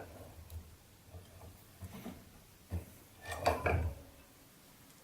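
Hand press and its metal dies being handled and worked: a series of light knocks and clicks, then a louder clatter of metal parts about three and a half seconds in.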